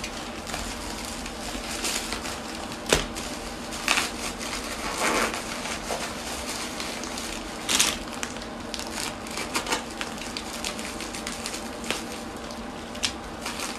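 Plastic packaging being cut and pulled open with a utility knife: irregular crinkling and crackling, with several sharp clicks.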